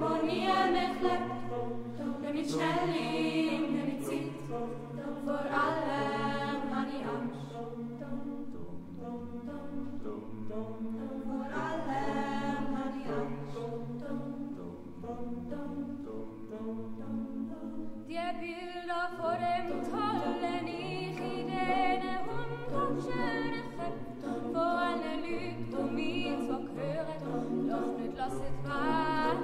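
Mixed youth choir singing a cappella in Swiss German dialect in a church: full sustained chords over a bass line that moves in steps, growing brighter and fuller about two-thirds of the way through.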